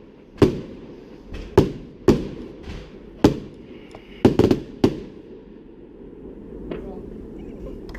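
Fireworks bursting overhead: sharp bangs with echoing tails, about eight in the first five seconds, some in quick pairs, before they thin out to a steady low rumble of background noise and voices.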